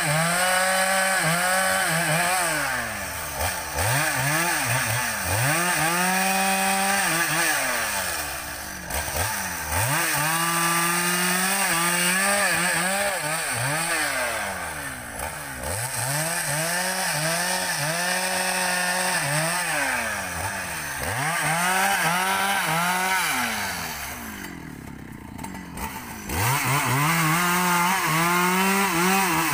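Husqvarna 395 two-stroke chainsaw bucking felled rubber-tree logs, its engine revved up and falling back over and over as it cuts. About 24 seconds in it drops toward idle and quiets for a couple of seconds, then revs up again.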